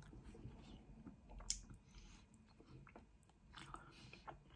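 Faint close-up chewing of pizza, with soft wet mouth clicks and one sharper click about a second and a half in.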